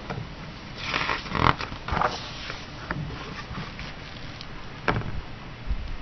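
Paper rustling as a picture book's page is turned and the book is handled, with a short sharp click near the end.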